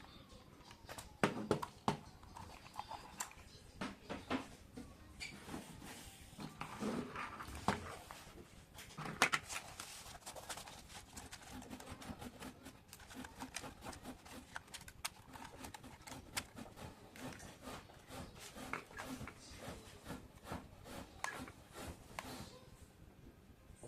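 Packaging and parts being handled during an unboxing: scattered light clicks, taps and rustles of plastic and cardboard.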